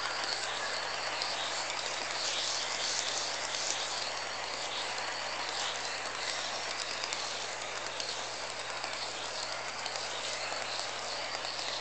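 Model freight cars rolling past on model railway track, a steady clatter of small wheels with rapid light ticks over the rail joints, fading slightly as the train moves on.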